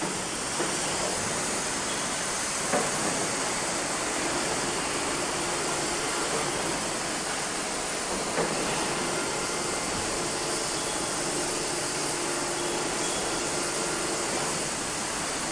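Steady hiss of the gas torches on an automatic flame-cutting machine for steel plate, with a few light knocks.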